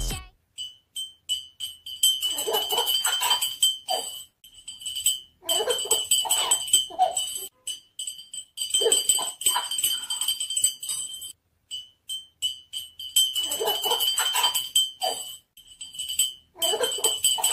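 A baby laughing in about five bouts of giggles, a couple of seconds apart. A thin high jingling comes and goes behind the laughter.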